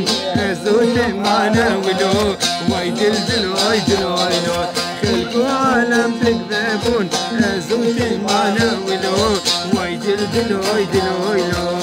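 Folk song: a saz, a long-necked lute, strummed in quick strokes while a man sings a wavering melody over it.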